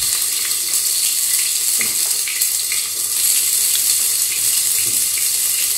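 Food frying in hot oil in a pan, a steady sizzle with faint crackles.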